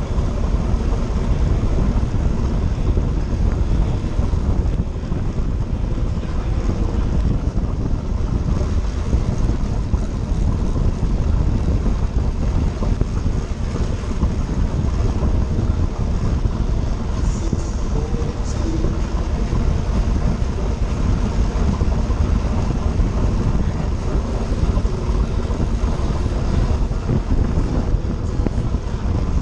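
Steady wind rush and low rumble on a handlebar-mounted action camera's microphone, from a track bike ridden at racing speed.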